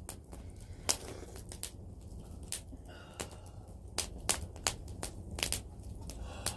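Open wood fire crackling, with irregular sharp pops over a low steady rumble.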